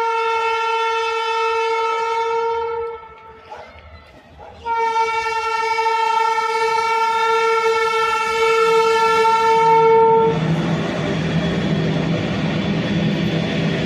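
Air horn of an Indian Railways WAG12B electric freight locomotive sounding a signal-asking honk: two steady single-pitch blasts, the second about twice as long as the first. After the horn stops, the locomotive and its long freight train keep running with a steady rumble and a low hum.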